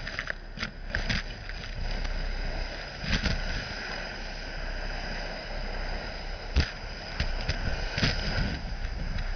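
Gutter vacuum system running with a steady rushing hiss, and sharp knocks and clicks as its suction pipe is pushed along the gutter.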